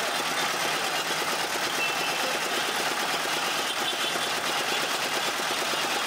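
Belt-driven sugarcane-crushing machine running steadily, with a fast, even mechanical rattle.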